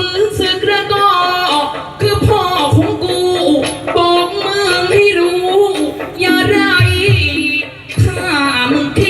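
A singer's long, sliding melodic vocal line in Thai folk-theatre (likay) style, over percussion with scattered drum beats.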